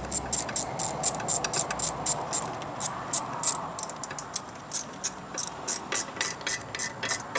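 Hand ratchet clicking as bolts on an engine's water outlet housing are run down, about five clicks a second, breaking into shorter, sparser runs in the second half.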